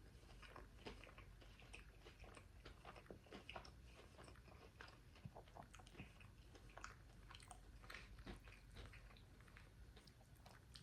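A person chewing a crispy fried chicken nugget close to the microphone: faint, irregular small crunches and mouth clicks.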